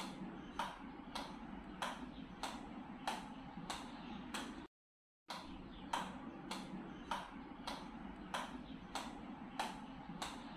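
Table tennis ball bouncing repeatedly on a paddle, a sharp click about twice a second, broken by a half-second gap of silence about halfway through.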